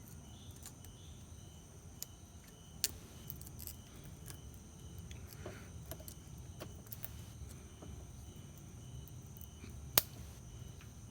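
Scattered small metal clicks and taps of engine parts being handled, with one sharper click about ten seconds in, over a faint steady hiss and a faint repeated high chirp.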